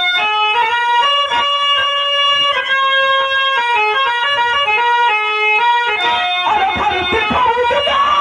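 Instrumental music: an electronic keyboard plays a melody of held notes that step from pitch to pitch. About six and a half seconds in, it changes to a busier, bending line that sounds like a plucked string instrument, over low beats.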